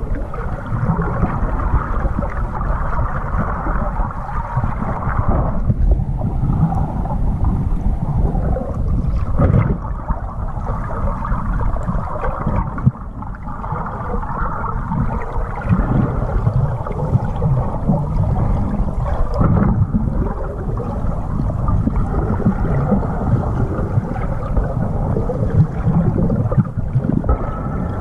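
Muffled, low rumbling water noise recorded by a camera held underwater while a snorkeler swims, dull and without any high sounds.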